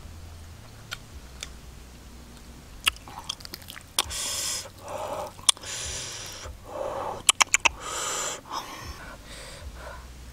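A person eating roasted catfish by hand: chewing and lip smacks with scattered clicks, then several loud hissing breaths drawn in between bites from about four seconds in, with a quick run of smacks just past seven seconds.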